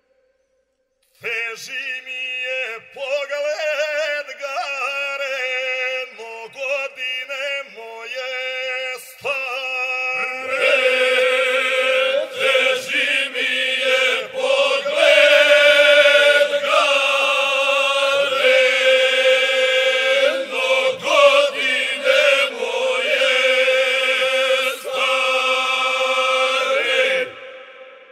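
A group of singers singing a traditional Serbian folk song in long, drawn-out phrases. The singing starts about a second in after a brief pause and grows louder and fuller about ten seconds in.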